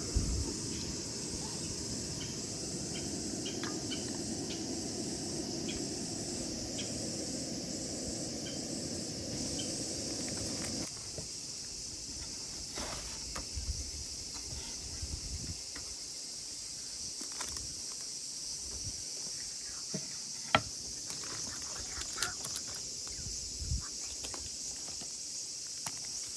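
Night insects, crickets among them, chirping steadily in a high continuous drone. A low steady rush runs underneath for the first part and stops suddenly about eleven seconds in, and a few scattered clicks and knocks sound over the rest.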